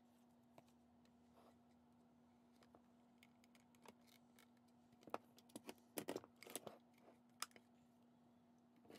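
Scattered clicks, taps and paper rustles of a journal cover and pages being handled at a Zutter Bind-It-All binding machine. They are busiest about five to seven seconds in, over a faint steady hum.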